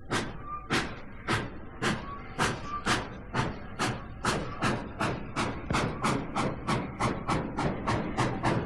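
Steam locomotive pulling a short train away, its exhaust chuffing in a steady rhythm that quickens from under two beats a second to about three a second as it picks up speed.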